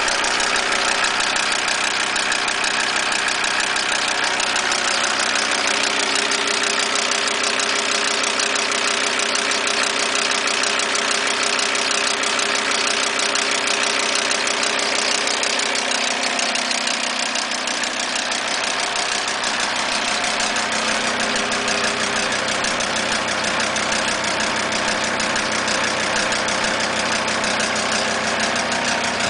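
Audi A6 2.5 TDI (AEL) five-cylinder diesel running steadily with a rapid ticking from the valve train. The cause is a sheared key on the crankshaft timing-belt sprocket: the camshaft has slipped 6–8 degrees advanced, so the inlet valves touch the pistons as they open.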